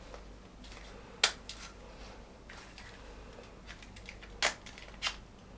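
Sharp clicks and small knocks from a gas blowback airsoft magazine being worked apart by hand as a part is pulled out: one loud click about a second in and two more near the end, with fainter ticks between.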